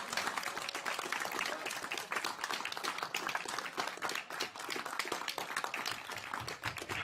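A room of people clapping continuously, many hands at once, in applause.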